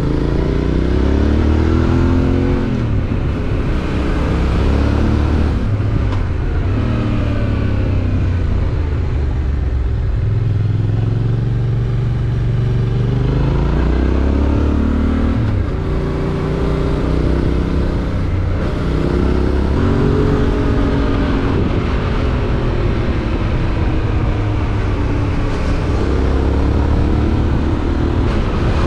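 Yamaha Ténéré 700's parallel-twin engine with an Akrapovič exhaust, running under way, its pitch climbing and dropping several times as the rider accelerates, eases off and shifts gears.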